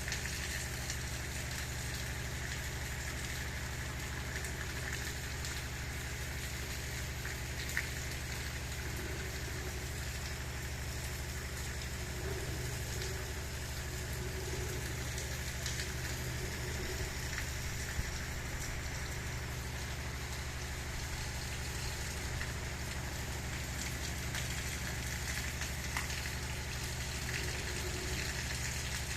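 Gentle rain falling steadily, an even hiss with scattered crackling drop ticks, over a steady low hum.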